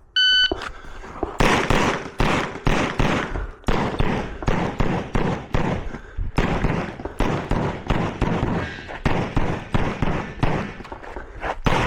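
Electronic shot timer's start beep, then rapid strings of pistol shots from a carry optics competition handgun. The shots come in quick clusters with short pauses between them as the shooter works through a USPSA stage.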